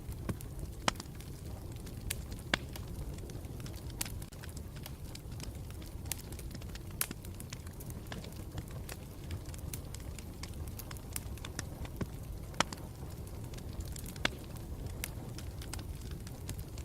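Campfire burning with a steady low rumble and irregular sharp crackles and pops of burning wood, a few of them louder snaps.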